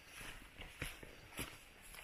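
Footsteps of a person walking on a trail, two distinct steps about half a second apart over faint background noise.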